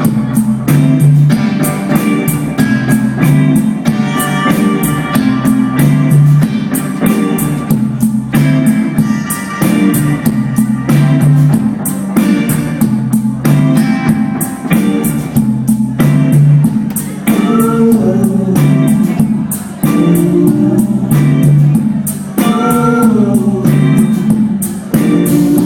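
Live rock band playing: guitars over a steady drum beat, loud throughout.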